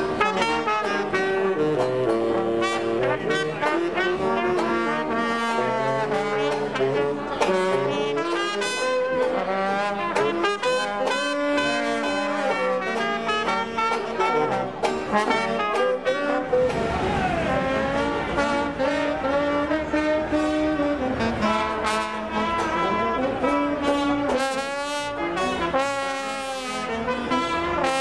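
Small jazz band playing live, trombone and trumpet carrying the tune. A rushing noise joins in for several seconds about halfway through.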